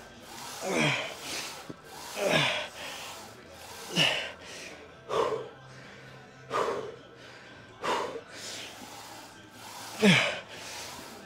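A lifter's forceful breaths, each a short voiced grunt falling in pitch, about seven of them, one every one to two seconds, pushing out repetitions on a leg press.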